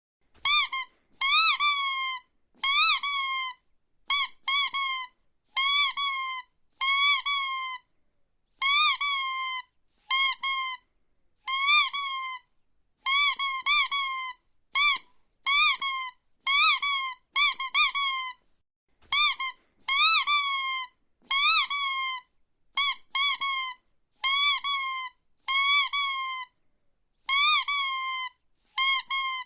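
Squeaky rubber duck toy squeezed over and over: about twenty separate squeaks, each under a second. Each one starts with a quick rise and fall in pitch, then holds a steady high note, with short silences between.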